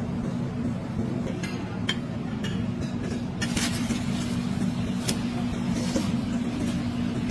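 Dining-room background: a steady low hum with light clinks and clicks of dishes scattered through it.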